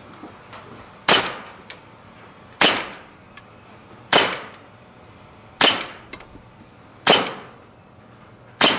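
KWC Colt 1911 full-metal CO2 blowback airsoft pistol firing six shots at a steady pace, about one every second and a half. Each shot is a sharp crack with a short metallic ring as the slide blows back, and a small click follows several of them.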